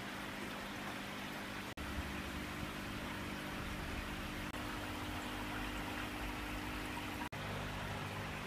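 Steady trickle and hiss of aquarium water circulation with a low steady hum, as from the tanks' filters and air pumps. The sound cuts out for an instant three times, about every three seconds.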